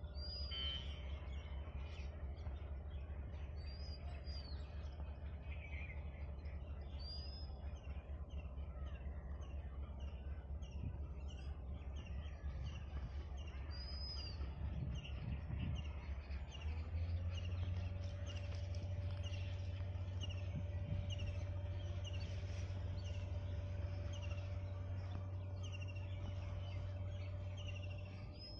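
Low rumble of a WDM-3A diesel locomotive's ALCO 16-cylinder turbocharged engine approaching at a distance with a long freight train. The rumble grows louder a little over halfway through as a steady whine joins in. Birds chirp over it, one repeating a short call over and over.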